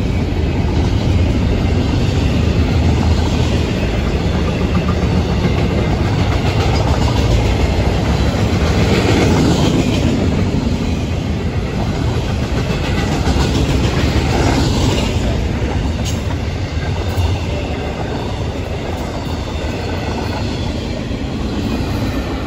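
Double-stack intermodal well cars of a freight train rolling past: a steady, loud rumble of steel wheels on the rails, easing off near the end as the last car goes by.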